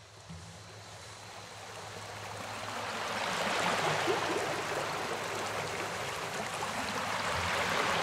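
Running stream water fading in over the first few seconds, then flowing steadily.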